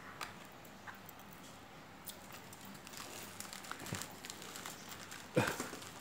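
Taped plastic wrapping of a parcel crinkling and crackling as it is handled, with scattered small clicks and rustles that grow busier over the last few seconds, and one louder short sound near the end.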